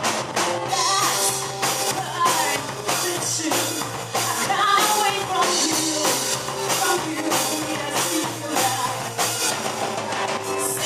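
Rock music: a steady drum-kit beat of about two hits a second, with a singing voice over it.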